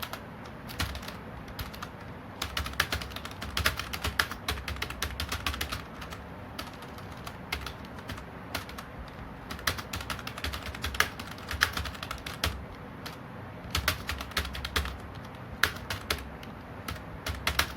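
Typing on a computer keyboard: rapid keystroke clicks in runs, broken by brief pauses.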